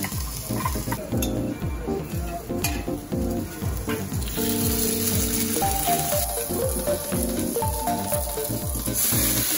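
Gyoza sizzling in oil on a hot teppan griddle, with background music with a steady beat playing over it.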